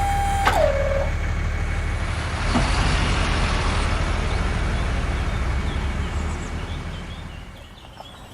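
A small motor's steady whine drops in pitch and stops about half a second in. It is followed by a steady, low, engine-like rumble that fades out near the end.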